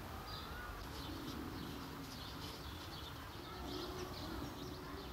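Garden birdsong: small birds chirping in short high calls throughout, with a dove cooing low in the background.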